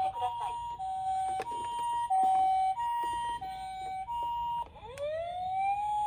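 Toy ambulance's electronic siren sounding the two-tone hi-lo ambulance siren, the two notes alternating about every 0.6 s. About 4.7 s in there is a click, and the siren switches to a wail that rises and then holds steady.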